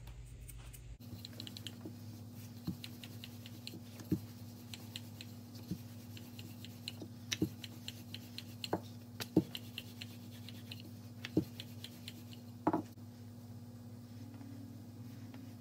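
Wooden rolling pin rolling out paratha dough on a silicone mat: scattered light knocks and clicks, a few louder ones, stopping about 13 seconds in. A steady low hum runs underneath.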